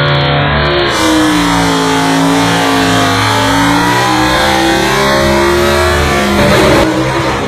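Chrysler 340 V8 of a VF Valiant Hardtop drag car at full throttle, launching off the line in a wheelstand and accelerating hard down the strip. The engine note is loud and its pitch shifts as the car pulls away.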